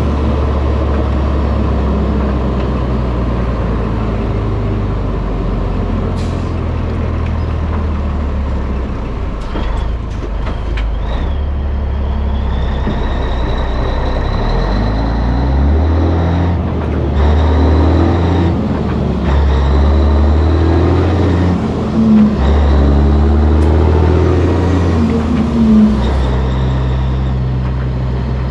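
Caterpillar diesel engine of a 1984 Peterbilt 362 cabover semi truck running on the road, through straight stacks. The engine note holds steady at first, then rises and drops several times in the second half, with a thin high whine in the middle.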